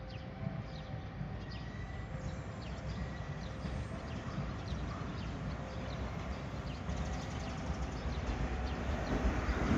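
JR 115-series electric train approaching along the track, its low rumble growing steadily louder toward the end.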